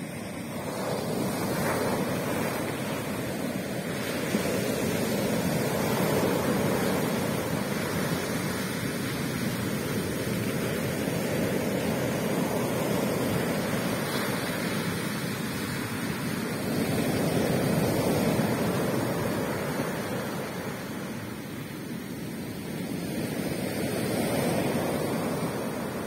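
Sea surf: waves breaking and washing up the beach in a continuous rush that swells and eases about every six seconds.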